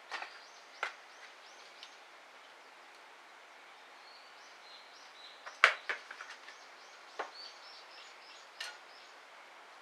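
Wood fire crackling in a Solo Stove: scattered sharp pops, the loudest about halfway through. A small bird chirps runs of short high notes in the background.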